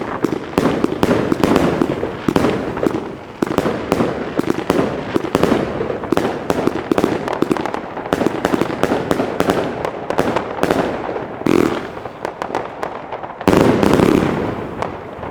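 Fireworks going off densely: a continuous run of rapid bangs and crackling, with louder surges near the end.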